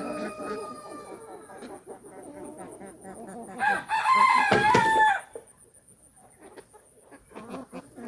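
Domestic chickens clucking, with a rooster crowing once about three and a half seconds in, loud and about a second and a half long.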